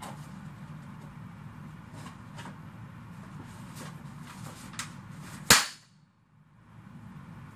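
Paper rustling as an envelope is handled, then a party popper rigged inside it goes off with a single sharp bang about five and a half seconds in.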